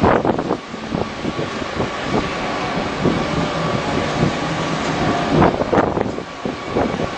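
Wind buffeting the microphone over a steady engine rumble, with stronger gusts right at the start and about five and a half seconds in.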